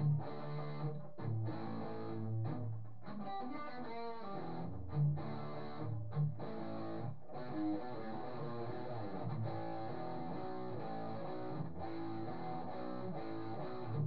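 Guitar strummed in chords, recorded through a webcam's microphone, with short breaks every second or so where the strings are stopped.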